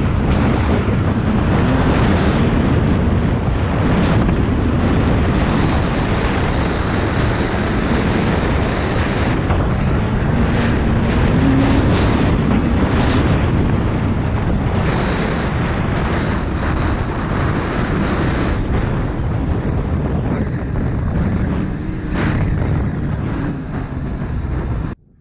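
Snowmobile running along a packed trail, its engine and track noise mixed with wind on the microphone, fairly steady throughout. It cuts off suddenly just before the end.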